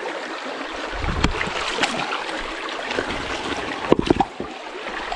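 River water running over rocks: a steady rushing noise, with a few sharp knocks about four seconds in.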